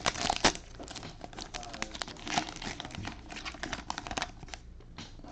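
Plastic cello wrapper of a trading-card pack crinkling as it is torn open and handled, a dense run of sharp crackles that thins out near the end.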